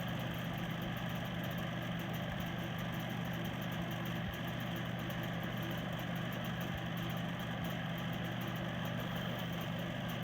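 Coleman mobile home furnace running with its burners lit and the circulating blower on, a steady motor hum with a rush of air; the furnace is heating normally after its faulty ignition module was replaced.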